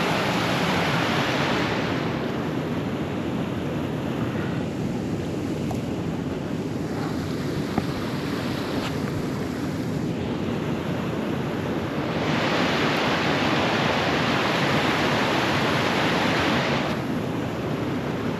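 Steady rushing of flowing river water with wind on the microphone, swelling louder at the start and again for several seconds past the middle.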